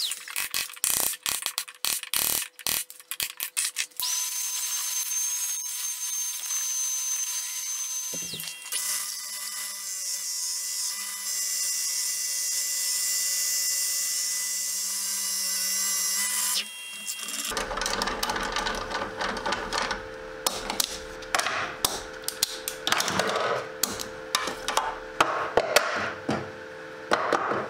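Woodworking power tools heard in a run of separate short segments. First come rapid clicks, then a steady motor whine. Next is a long, even run with a strong hiss, and last a busy stretch of sharp knocks and clatter.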